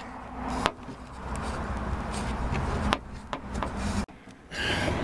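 Hand working a door-handle linkage hook loose inside a Toyota Sienna front door: rubbing and scraping, with sharp clicks just under a second in, about three seconds in, and about four seconds in.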